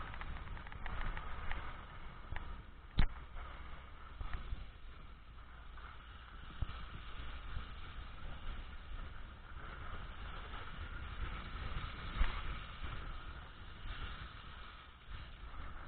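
Vehicle driving slowly along a snow-covered road, a steady low rumble of engine and tyres, with a sharp knock about three seconds in and a smaller one later.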